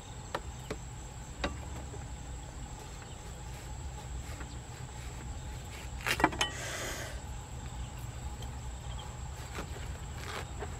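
A large knife chopping into a watermelon: a few light knocks, then one sharp knock about six seconds in followed by a short crunchy rasp as the blade goes through the rind, and more cutting near the end. Under it runs a steady high-pitched insect drone.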